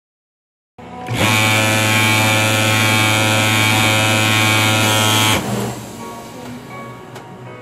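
Pegasus industrial overlock sewing machine running fast as fabric is fed through, a loud steady buzz that starts about a second in and stops about four seconds later, leaving a quieter hum with a few light clicks.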